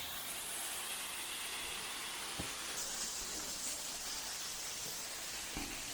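Steady hiss of rushing water from a waterfall, with a faint tap about two and a half seconds in.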